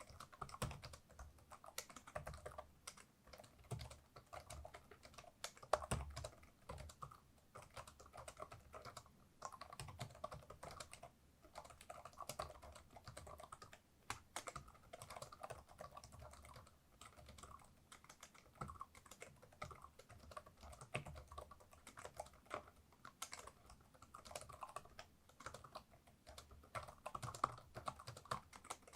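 Typing on a laptop keyboard: a continuous, irregular patter of quiet key clicks.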